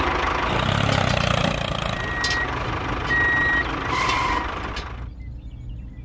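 Two beeps of a vehicle's reversing alarm, each about half a second long and about a second apart. They sound over a broad rushing noise that fades out near the end.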